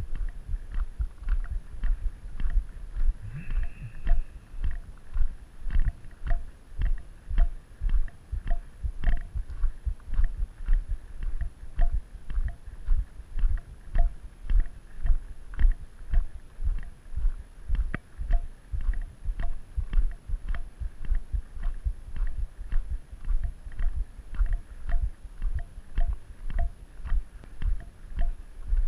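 Footsteps on a gravel road at a steady walking pace, about two steps a second: a low thud with a light crunch on each step, picked up by a body-worn GoPro camera.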